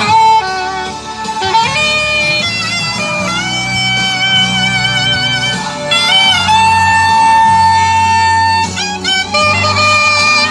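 Saxophone playing a slow melody with vibrato over a backing accompaniment, holding one long note past the middle.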